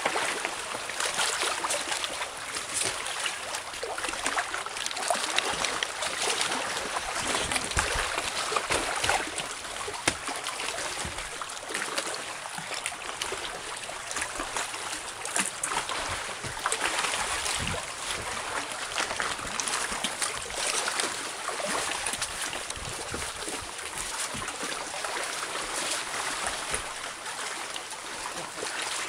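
Lake water lapping and splashing against rocks and a wrecked wooden raft, a continuous uneven sloshing that swells and eases.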